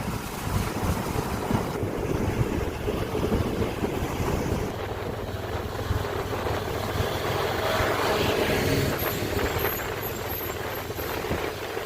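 Road vehicle noise: a steady engine and tyre rumble mixed with wind on the microphone, swelling louder around eight seconds in.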